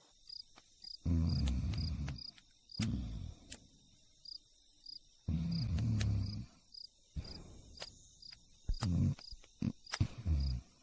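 Cricket chirping sound effect, short high chirps repeating evenly about two or three times a second. Several low rumbling bursts, each up to a second and a half long, come and go over it.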